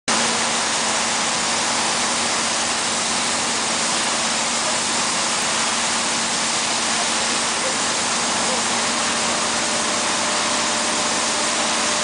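Steady, even hiss of running construction machinery on a pile-driving barge, with a faint steady hum underneath; no hammer blows.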